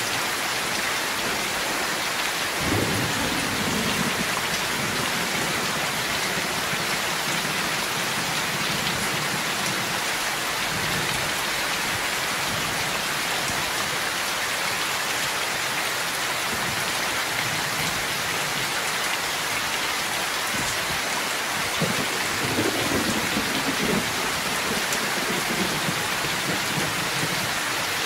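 Heavy rain pouring off a roof edge and splashing on wet ground, a steady dense hiss. Thunder rumbles low about three seconds in and again about twenty seconds later.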